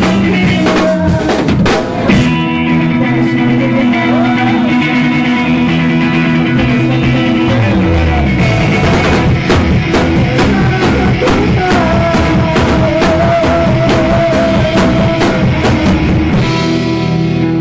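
A live rock band playing loud: a drum kit with regular cymbal hits over electric guitar and bass. The drums drop out near the end, leaving the guitar ringing on.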